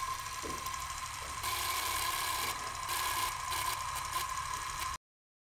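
Steady mechanical whirring and hiss with a thin high tone over it, which cuts off suddenly about five seconds in.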